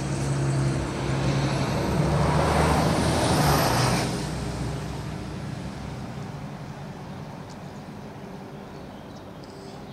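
A road vehicle passing, its engine and road noise swelling to a peak about three to four seconds in, then slowly fading away.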